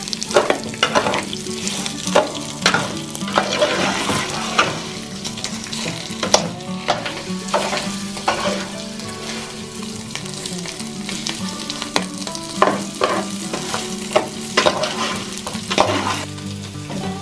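Rice and chorizo frying in hot oil in an aluminium pot, a steady sizzle as the rice browns before any liquid goes in. A metal spoon scrapes and knocks against the pot many times as it is stirred.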